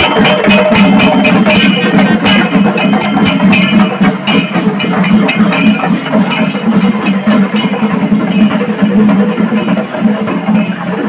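Traditional festival percussion music: fast, even strikes about four to five a second, like small cymbals, over a steady low drone. The strikes grow fainter in the last few seconds.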